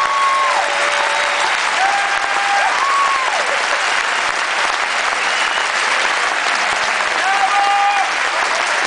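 A large concert-hall audience applauding steadily, with a few long held calls from the crowd rising over the clapping now and then.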